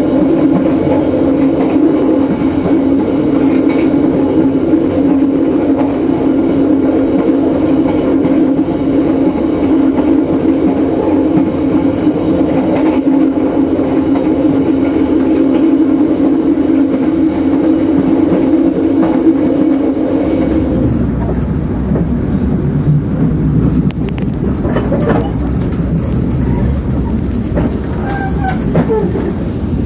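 KA Jayabaya passenger train running at speed, heard from the side of the carriage: a loud, steady rush and rumble of wheels on rail and passing air. About two-thirds of the way through it changes suddenly to a deeper, lower rumble, with a few brief higher squeaks near the end.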